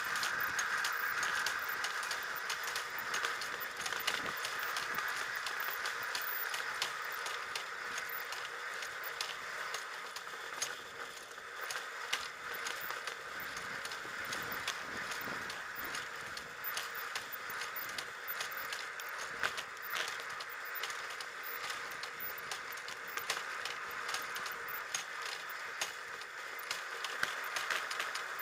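A small rail trolley running along the old track: steady running noise from its wheels on the rails, with many light clicks and rattles throughout.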